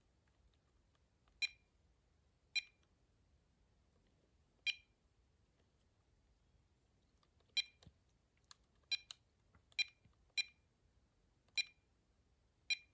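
VTech CS5121 cordless phone handset giving short key-press beeps, about nine of them at uneven intervals, as its buttons are pressed to step through the handset's menu.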